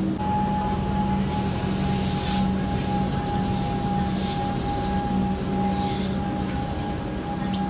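Suburban electric train moving slowly past at close range: a steady high whine and a low hum run throughout, with short bursts of hiss from the wheels and running gear about three times.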